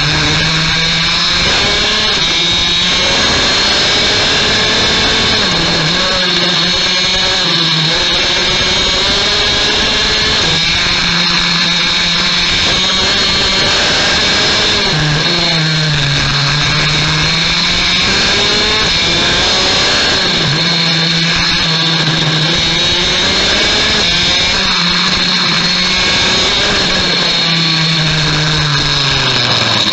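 Rotax Max DD2 kart's 125 cc single-cylinder two-stroke engine at racing speed, heard close from onboard. Its pitch climbs on each straight and drops sharply into each corner, over and over.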